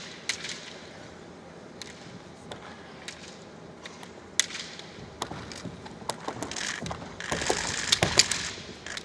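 Bamboo shinai clacking now and then as two kendoka feel each other out. About seven seconds in, an attack breaks out: loud kiai shouts over a rapid run of shinai strikes and stamps on the wooden floor.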